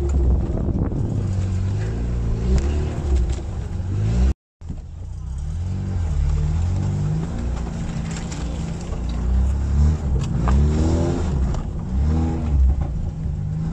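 Lada Niva engine running and revving up and down as the 4x4 climbs and crawls through a muddy off-road trial course, with a brief gap in the sound about four and a half seconds in.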